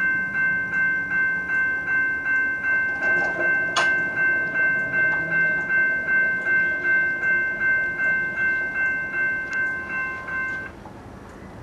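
Railroad crossing signal bell ringing in steady, even strokes, a little under three a second, then cutting off suddenly near the end: a contact in the gate mechanism opens and shuts the bell off once the gate arm is all the way down. A single sharp click sounds about four seconds in.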